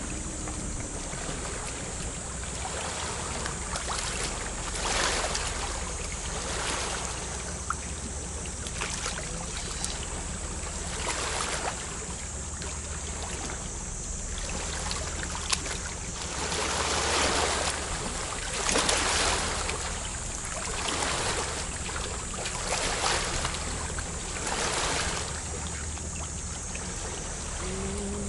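Shallow seawater sloshing and splashing in repeated swells every couple of seconds, over a steady hiss of water, with wind rumbling on the microphone.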